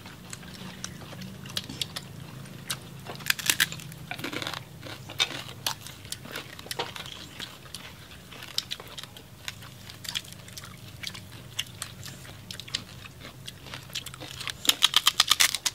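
Chewing and crunching of jar-roasted pork belly with crackling skin: irregular crisp crunches as it is bitten and chewed, with a quick run of crunches near the end.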